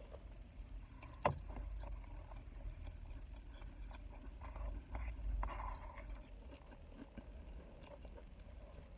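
Soft eating noises inside a car: a sharp click about a second in, then quiet chewing and rustling, over a low steady rumble.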